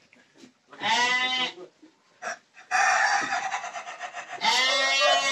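Sheep bleating in the pen, with a rooster crowing: three calls, a bleat about a second in, a harsher call in the middle, and a long bleat near the end.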